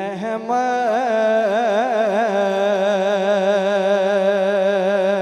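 A man singing a naat, drawing out one long note. For the first couple of seconds the pitch turns and ripples in ornaments, then it holds steady with a slight vibrato.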